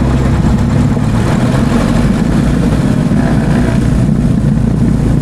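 Diamond DA40 Diamond Star's single piston engine and propeller running with a steady, loud drone, heard inside the cockpit.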